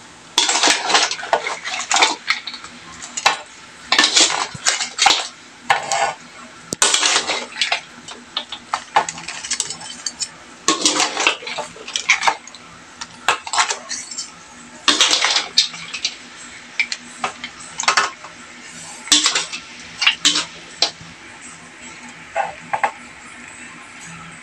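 Metal ladle scraping and clinking against a wok as saucy boiled seafood is scooped out onto a plate, in irregular clusters of scrapes and clinks every few seconds.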